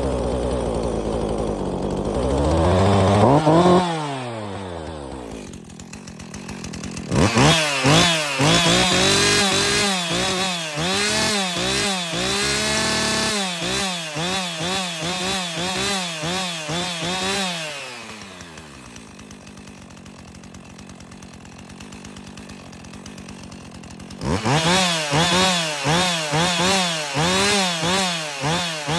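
Two-stroke chainsaw engine idling, revved up and dropping back, then blipped to high revs over and over, falling back after each one. It settles to idle for several seconds and is revved repeatedly again near the end.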